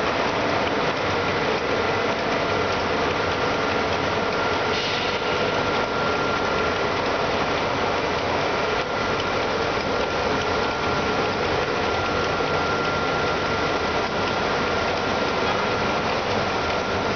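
AAC block vertical cutting machine and its suction system running: a steady mechanical noise with a constant high whine.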